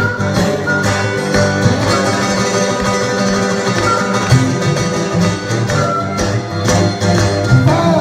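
Acoustic country blues played live: an archtop guitar and an acoustic flat-top guitar picking together while a harmonica plays short held notes over them.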